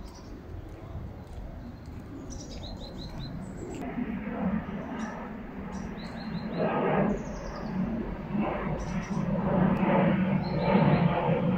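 Small songbirds chirping in short, high calls and quick trills. From about four seconds in, a low rumble swells and grows steadily louder beneath them.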